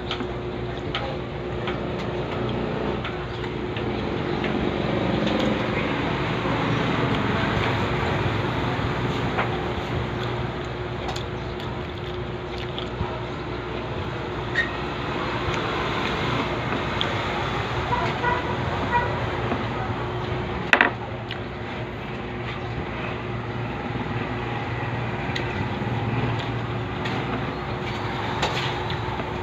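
Road traffic running steadily in the background, swelling and fading twice as vehicles pass, under a faint steady hum. A sharp brief knock sounds about two-thirds of the way through.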